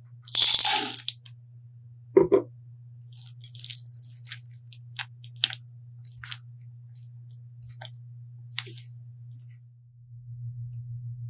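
Silicone spatula folding thick, sticky chocolate brownie batter in a glass bowl: wet squishing and scraping against the glass. There is a louder scrape about half a second in, a double knock about two seconds in, then scattered short scrapes, all over a steady low hum.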